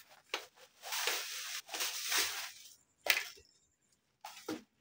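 Black plastic bubble wrap rustling and crinkling in several bursts as it is pulled off a fishing rod in its cloth sleeve, with one sharp crackle about three seconds in.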